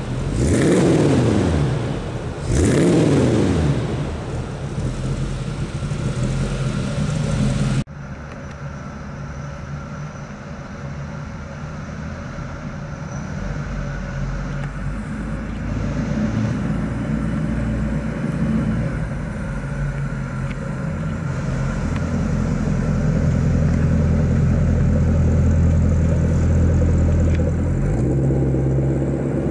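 1947 Chevrolet Stylemaster's rebuilt 331-cubic-inch V8 through a Magnaflow dual exhaust, revved twice in quick blips near the start, then idling. After a sudden cut about eight seconds in it runs steadily at low speed, its low exhaust note growing louder for several seconds near the end.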